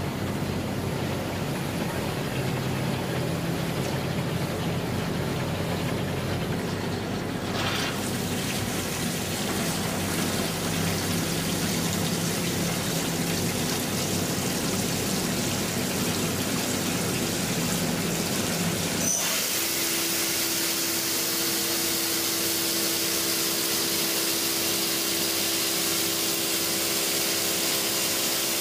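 CNC machining center face-milling aluminum, running steadily with a hiss like coolant spray. About two-thirds of the way through, the sound changes abruptly to a brighter, louder hiss with a steady hum in it.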